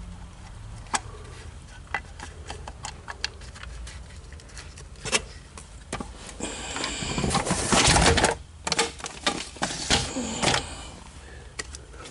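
Scattered clicks and light knocks of small parts and tools being handled while a distributor cap is fitted, with a louder rustling clatter lasting about two seconds past the middle and a shorter one near the end.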